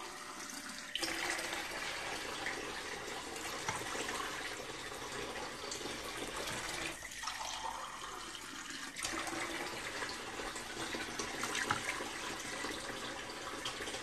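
Kitchen tap running, water splashing into a cup to fill it, starting about a second in and easing briefly around seven seconds.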